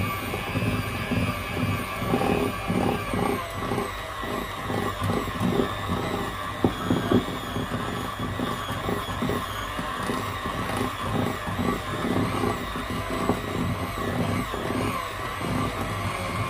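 Electric hand mixer running steadily, its beaters working a stiff shortbread dough of butter, sugar and flour in a glass bowl. There is irregular knocking from the beaters moving through the dough and against the bowl.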